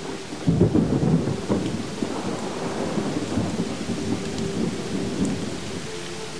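Thunder rumbling over steady rain, the rumble breaking in loudly about half a second in and rolling on while faint held music tones carry on beneath.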